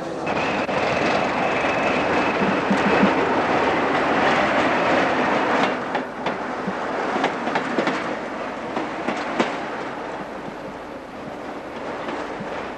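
Train running through a station: a steady running noise with a high wheel squeal for the first few seconds, then a string of sharp clicks as the wheels cross rail joints. It fades toward the end.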